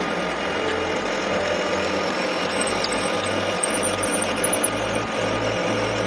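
Lathe running, turning the outer surface of a round bar: a steady machine hum and cutting noise.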